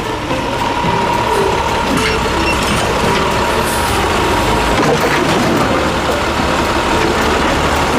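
Garbage truck running, a steady, dense, noisy truck sound with a faint held whine through the first five seconds or so.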